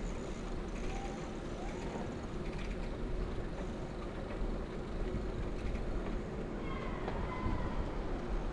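Steady street noise heard while riding a bicycle through the city: an even low rumble with no single event standing out.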